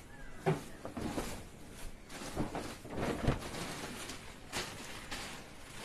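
Quiet rustling of a fabric curtain panel being unfolded and spread out, with a few brief swishes and soft knocks of handling about a second apart.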